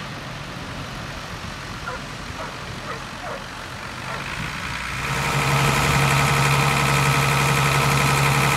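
A motor fishing boat's engine heard from a distance as the boat runs in to the beach. About five seconds in, a much louder engine starts idling close by, a steady drone with a constant low hum.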